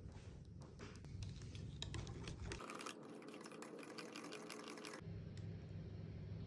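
Quick, faint clicking of a wire whisk and mesh sieve against a glass mixing bowl as starch is sifted and whisked into cheesecake batter.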